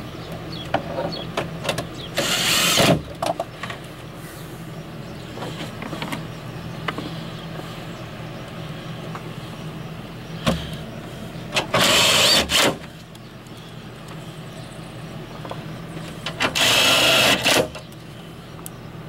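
Tool work in a truck's engine bay: small clicks and knocks of hand tools, broken by three loud bursts of about a second each (a couple of seconds in, about twelve seconds in, and near the end), over a steady low hum.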